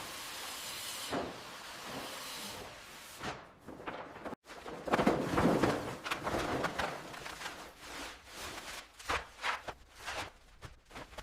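Knocks, thuds and scraping clatter of renovation work, in quick irregular hits, after a steady hiss in the first few seconds and a brief cut-out about four seconds in.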